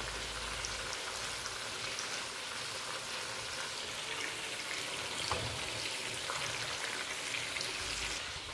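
Breaded food frying in oil in a pan on a gas stove: a steady sizzle with scattered small crackles and pops, which thins out near the end.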